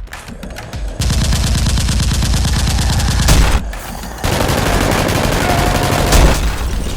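Rapid automatic gunfire sound effects, in two long bursts: the first starts about a second in, a short pause follows, and the second runs on to the end.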